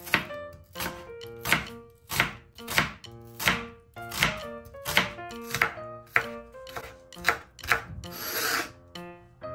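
A chef's knife slicing a red onion on a bamboo cutting board: a steady run of about thirteen crisp cuts, each one a blade crunching through onion and tapping the board, roughly one and a half a second. A longer scrape follows near the end.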